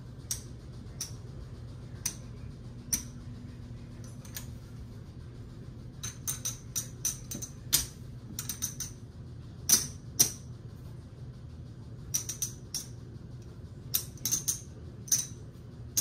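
Casino chips clacking against each other as they are picked up, stacked and set down by hand, in irregular clusters of sharp clicks over a steady low hum.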